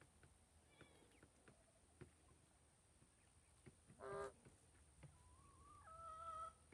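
Backyard poultry calling: one short, harsh call about four seconds in, then a thin, steady whistled note lasting about a second and a half near the end, stepping up a little in pitch. Faint scattered clicks lie under the calls.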